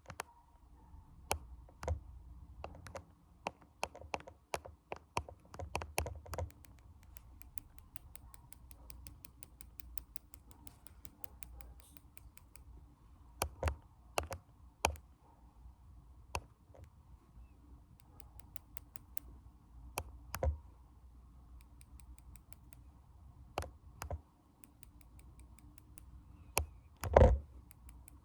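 ASMR finger tapping: scattered sharp taps, some with a soft thud, alternating with runs of very fast, light ticking. The loudest taps come near the end.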